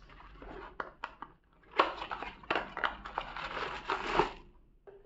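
Cardboard box and plastic bag rustling and crinkling as a bagged power adapter is pulled out of its small packaging box. Scattered rustles and clicks come first, then denser crackling from about two seconds in that stops shortly before the end.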